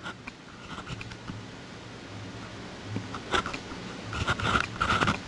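Stylus scratching and tapping on a tablet screen in short strokes while writing out a problem, over a low steady hum.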